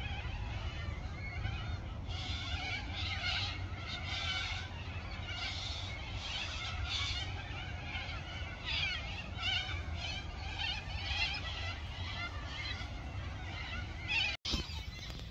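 A chorus of wild animal calls at dusk, repeated chattering calls following one another every second or so, over a steady low rumble. The sound drops out for an instant near the end.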